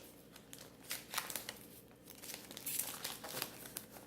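Packaging being unwrapped by hand: irregular crinkling and rustling, louder in two spells, about a second in and again near three seconds.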